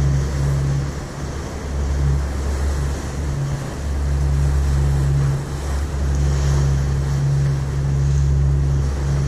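Passenger ferry under way: a steady low drone from the boat with water rushing past the hull, and wind buffeting the microphone, which drops out briefly a couple of times.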